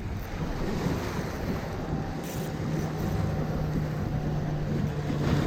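Wind buffeting the microphone over the wash of water, with a steady low hum joining about two seconds in.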